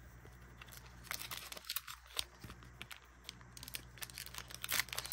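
Foil wrapper of a Pokémon booster pack crinkling faintly as it is handled, in scattered small crackles, a little louder near the end.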